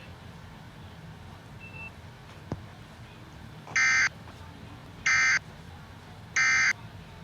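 Emergency Alert System end-of-message signal: three short, raspy digital SAME data bursts about a second apart, the code that closes the alert.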